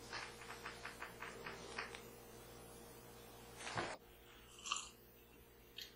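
Quiet room with a run of soft, rapid ticks for about two seconds, then a short knock and a brief sip from a small whiskey glass around four to five seconds in.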